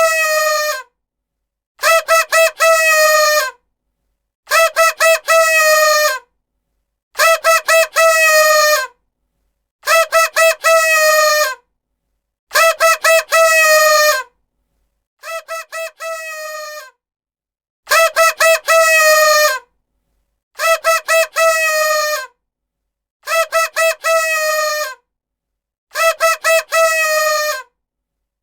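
Paper party horn blown in repeated sets of three quick toots and one longer blast, a set every two to three seconds. The pitch sags at the end of each long blast. One set near the middle is quieter.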